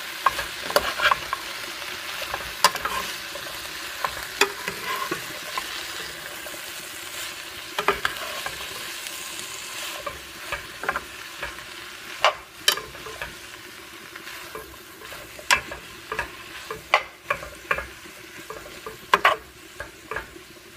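Shredded squash, green beans and chicken sautéing and sizzling in oil in a skillet while being stirred, a utensil clicking and scraping against the pan at irregular intervals. The sizzle grows fainter in the second half.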